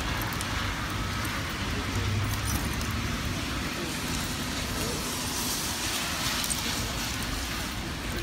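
Steady hiss of rain and car traffic on a wet road.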